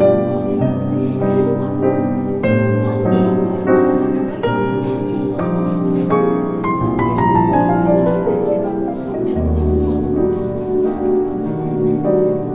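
Background music led by piano, with steady bass notes and a falling run of notes partway through.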